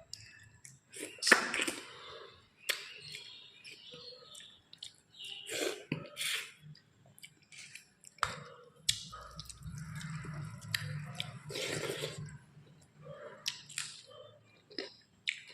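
Close-up eating sounds: a person chewing a mouthful of food, with irregular sharp mouth clicks, lip smacks and soft crunches.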